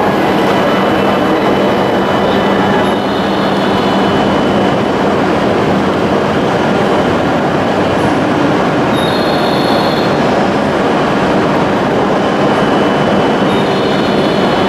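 E7-series shinkansen train pulling out and running past, a loud, steady rumble of wheels and running gear with thin high whines that come and go.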